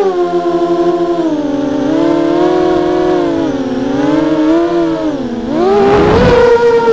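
Mini FPV racing quadcopter's brushless motors (MN1806 2300kv) and 5-inch propellers whining, heard through the onboard microphone, the pitch sliding up and down with throttle. Near the end the pitch dips, then climbs sharply with a loud rush of noise as the throttle is pushed up.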